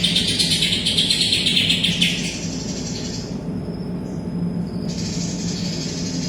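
Cucak ijo (green leafbird) singing: a loud, dense burst of fast high-pitched song for about two seconds, then softer high notes near the end, over a steady low hum.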